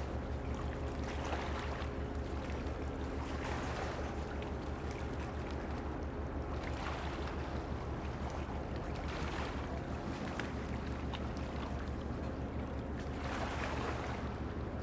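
Passing container ship's engine droning low and steady, with a fast pulsing throb and a few steady hum tones. A rushing noise swells over it every few seconds.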